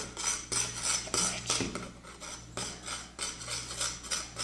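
A utensil stirring and scraping round a container of thickening homemade slime, a glue-and-paint mixture with a boric-water activator, in repeated strokes of about two a second.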